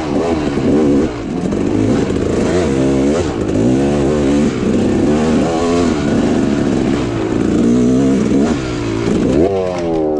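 Dirt bike engine ridden hard on a rough trail, the revs rising and falling every second or so as the throttle is worked on and off. Near the end the revs climb steeply as the bike crashes.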